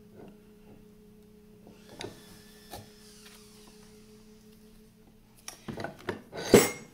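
A cast-iron arbor press being worked with a steel strap-end cutter on a leather strap: light taps, then a cluster of sharp metallic knocks near the end, one loud ringing clank among them. A steady low hum runs underneath.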